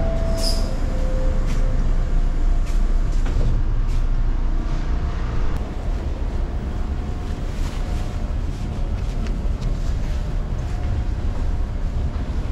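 Toronto TTC Line 2 subway train: a steady low rumble from inside the car, with two short falling tones near the start. A little before the middle it turns slightly quieter: the train standing at the platform with its doors open.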